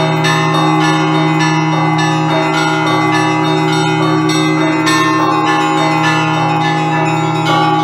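Russian Orthodox church bells in a festive improvised peal: quick, overlapping strikes of the smaller, higher bells over the steady hum of a large bell.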